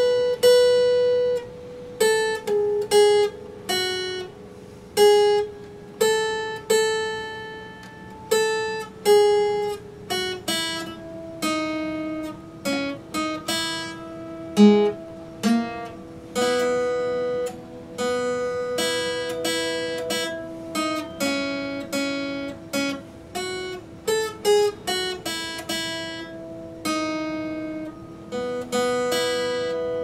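Epiphone acoustic-electric guitar played solo: a melody of picked notes and chords, each ringing out and fading before the next.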